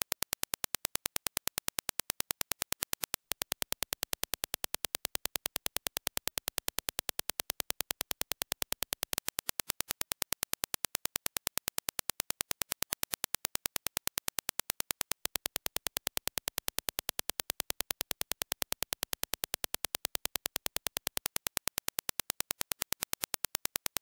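A rapid, perfectly even train of sharp, identical clicks, several a second: a reference Dirac impulse test signal for judging headphone transient speed.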